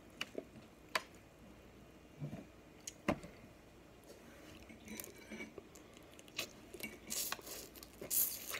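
Eating snow crab: a few sharp clicks and knocks of crab shell against the foil pan, then loud sucking and slurping of meat from a crab leg near the end.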